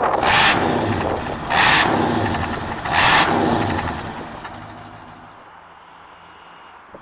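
1971 Cadillac Eldorado's 500 cubic inch V8 heard at the tailpipe, blipped three times about a second and a half apart, each rev a loud rush of exhaust over the idle. The sound then fades away over the last few seconds.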